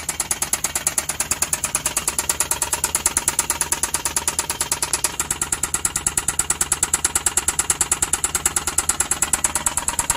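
Suzuki K6A three-cylinder engine idling with a rapid, even knock, about ten strikes a second: an internal mechanical knock that the mechanic judges a case for overhaul.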